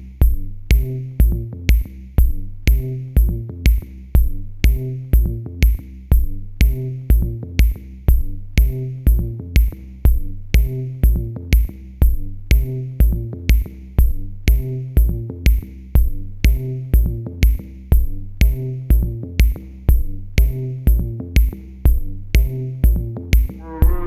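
Electronic dance music with a steady kick drum at about two beats a second over a repeating bass and synth pattern.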